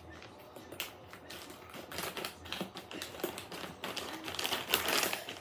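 Plastic packaging crinkling and clicking in irregular bursts as it is opened and handled, busier and louder over the last few seconds.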